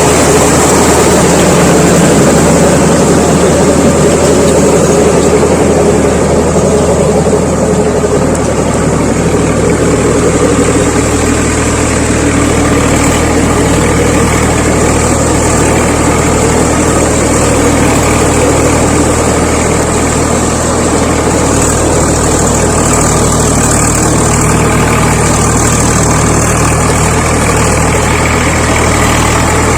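Swaraj 855 FE tractor's three-cylinder diesel engine running steadily, loud and close, its note shifting slightly a few times.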